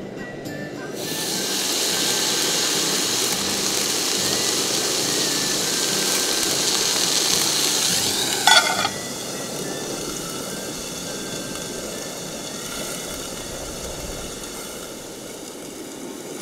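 Beef fillet steak sizzling loudly in a hot cast-iron skillet, the sizzle swelling in about a second in. About eight and a half seconds in, a stainless pot lid is set on the skillet with a short metallic clank and ring, and the sizzling goes on quieter under the lid.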